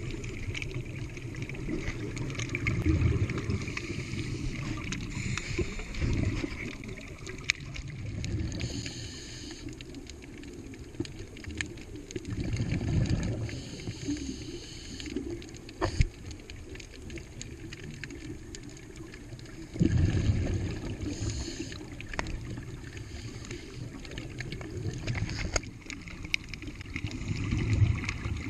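Underwater sound of scuba breathing through a regulator: bursts of exhaust bubbles rumbling up every few seconds, with a fainter hiss between them. One sharp click about halfway through.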